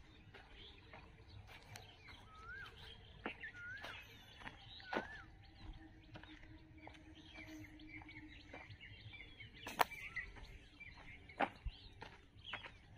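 Wild birds chirping and calling in an open rural setting, many short notes overlapping, with one short curved whistle repeated three times about a second apart. A few sharp clicks stand out above the birdsong, the loudest about ten seconds in.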